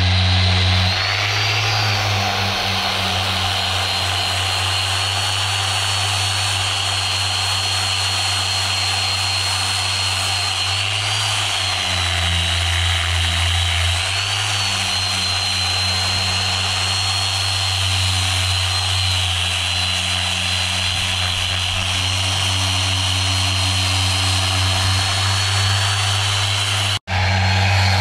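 A motor running steadily and loudly with a high whine and a low hum underneath, typical of an electric power tool; the sound drops out for an instant near the end.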